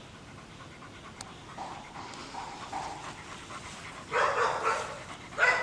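Pit bull panting, with two louder, rough bursts, one about four seconds in and one near the end, as it bites into a whole raw chicken.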